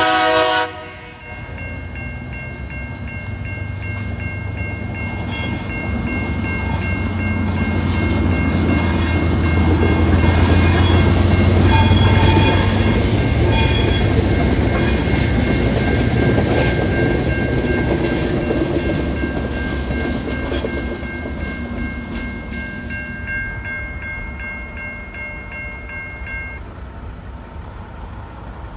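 Two TasRail TR class diesel locomotives passing over a level crossing. A short horn blast comes right at the start, then the engines' low drone swells as they go by and fades away, with wheel clicks over the rail joints. The crossing's warning bells ring steadily throughout and stop a couple of seconds before the end.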